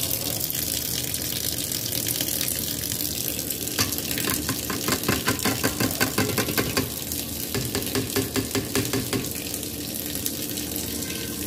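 Kitchen tap running, water splashing through a plastic colander of fresh coriander into a steel sink. From about four seconds in comes a quick run of knocks, about five a second, for some five seconds, as the colander is shaken and tapped over the cooking pot.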